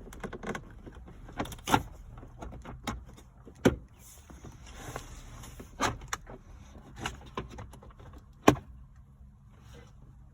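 Plastic clips and a trim piece being handled and pushed into place: an irregular run of sharp clicks and knocks with rustling between, the loudest knocks about 4 and 8.5 seconds in.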